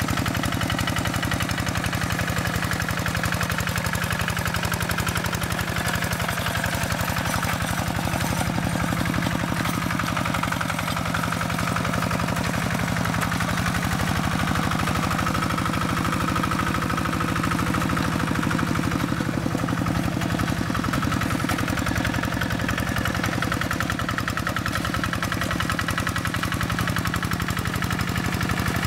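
Single-cylinder diesel engine of a Quick Impala two-wheel hand tractor running steadily under load, with a fast, even beat of firing strokes, as the tractor's cage wheels churn through a flooded rice paddy.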